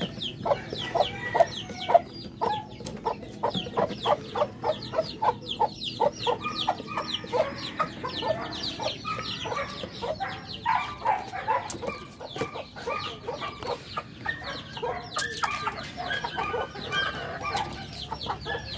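Chickens clucking, with many short, high chirps several times a second, typical of chicks peeping around a hen.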